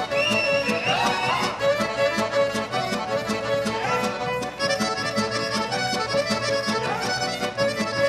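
Serbian folk dance music played live by an accordion-led folk orchestra: a dance tune over a steady quick beat.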